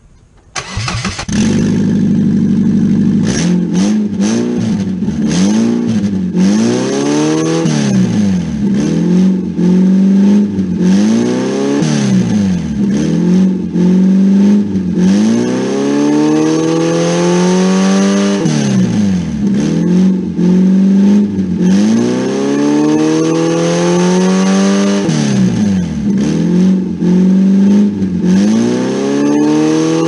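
Car engine running with its catalytic converter removed. It holds steady at first, then is revved again and again, the pitch rising and falling about every two seconds.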